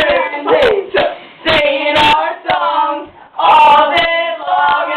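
Several high-pitched voices singing a rhythmic a cappella chant, layered over one another in short repeated phrases.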